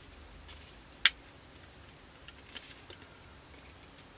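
Plastic model-kit fuselage halves clicking and ticking against each other as they are dry-fitted by hand: one sharp click about a second in, then a few faint ticks.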